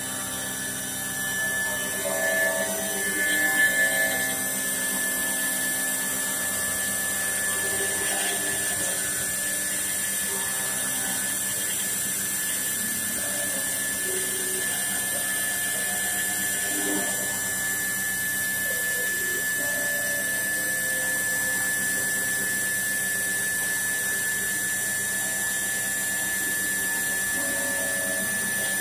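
CNC stone-carving router's high-speed spindle running steadily with a high whine as its thin bit carves a relief into a white stone slab, briefly louder about three seconds in.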